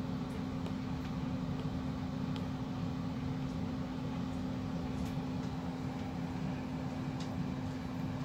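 Steady low hum with one constant tone, with a few faint ticks of an Apple Pencil's tip on an iPad's glass screen.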